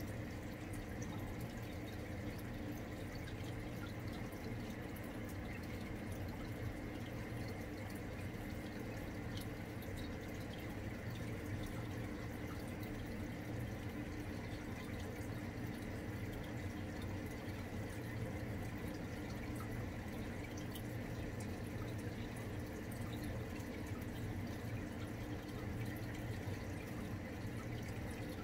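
Aquarium filter running: a steady trickle and drip of water over a low, even hum.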